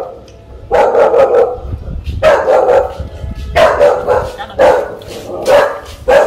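A dog barking over and over, in loud bouts about a second apart.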